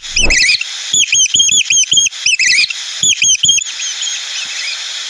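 A bird chirping in quick bursts of short, high, hooked notes, several a second, over a steady hiss; the chirps grow fainter near the end.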